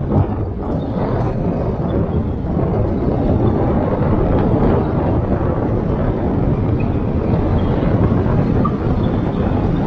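Steady road and wind noise of a Kia K3 driving along city streets: a constant low rumble of tyres and engine with a wash of air over it.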